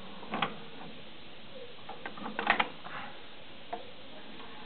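Technics RS-BX727 cassette deck's eject mechanism: a click as the open/close button is pressed, then a cluster of mechanical clicks and clatter about two seconds later as the cassette door opens, and one small click near the end.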